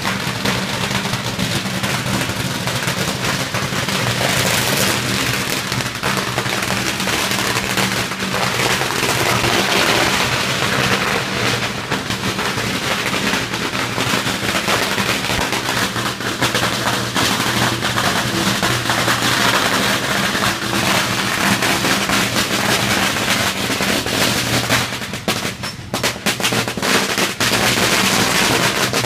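Strings of firecrackers going off inside a brick firecracker tower: a really loud, unbroken rapid crackle of bangs, with a brief lull about 25 seconds in before it picks up again.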